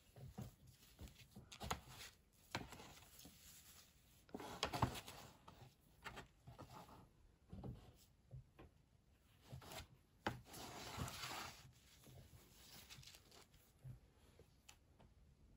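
Faint rustling and rubbing of cloth being handled, folded and laid down by hand, in irregular bursts with a few light taps.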